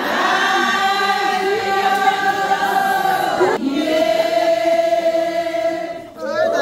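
A group of women singing together in unison, holding long notes. The line breaks off about three and a half seconds in and a second long phrase follows.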